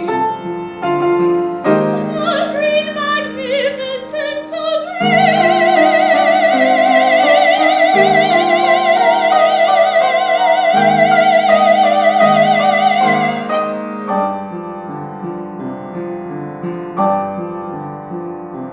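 A female singer sings in a classical style with wide vibrato over piano accompaniment, holding one long high note for about eight seconds. The voice stops about two-thirds of the way through, and the piano plays on alone with quieter chords.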